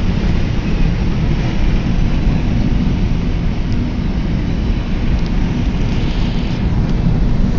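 Steady road and engine rumble of a car driving through a thunderstorm, with an even rain hiss over it.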